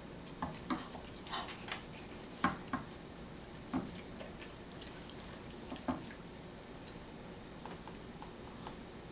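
Irregular light clicks and clacks from a Dog Tornado, a plastic treat-puzzle toy with swivelling layers, as a dog pushes it about to get at the treats, with a few louder knocks.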